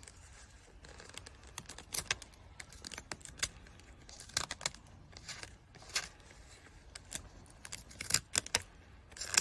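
Utility-knife blade shaving the wood of a flat carpenter pencil by hand: irregular short scrapes and clicks as slivers are cut away.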